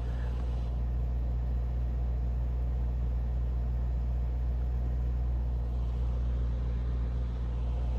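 Lamborghini Urus's twin-turbo V8 running with a steady low hum.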